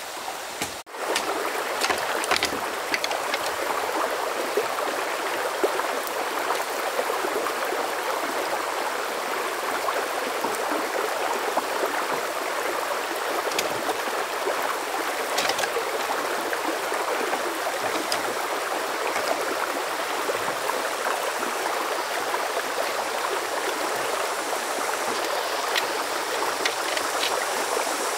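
A forest stream flowing steadily, a continuous rushing of water. It cuts out briefly about a second in, and a few faint clicks sound over it.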